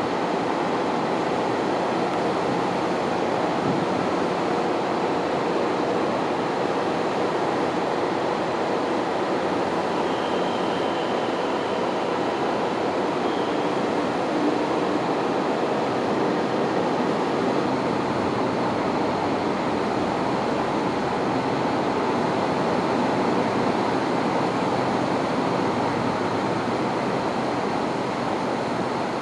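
Diesel engines of a KiHa 183 series express train idling at a station platform: a steady hum under an even rushing noise.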